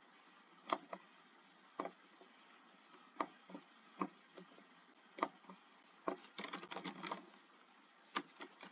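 Computer keyboard keystrokes: single key taps about once a second, then a quick run of typing a little past the middle and a few more taps near the end.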